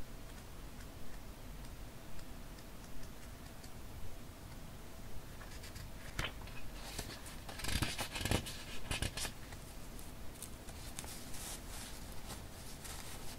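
Sheets of paper being handled and leafed through, with soft page ticks at first and a louder bout of crisp rustling about halfway through, then lighter rustles near the end.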